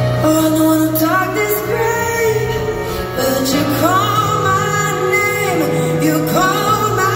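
A woman singing lead over a live band in an arena, with a steady bass line under her. Her voice slides up into held notes about a second in, again near four seconds and again near the end.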